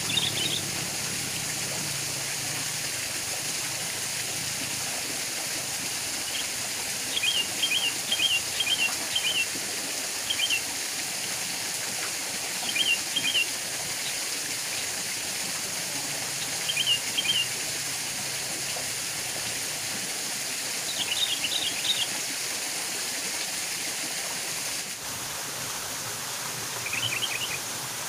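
Steady rush of water from a small waterfall and stream. Over it a bird calls in short runs of quick high chirps, several times.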